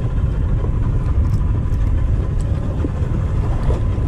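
Steady low rumble aboard a fishing boat at sea, with a few faint light clicks as pliers work on a hook and leader.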